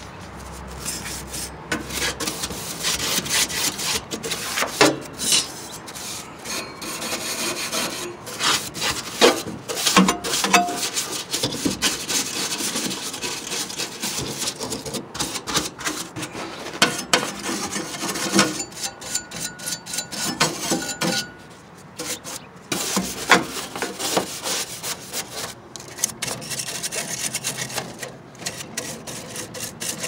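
Stiff-bristled hand brush scrubbing and sweeping the sheet-metal panels and floor inside a furnace cabinet: an irregular rasping scratch with frequent short knocks.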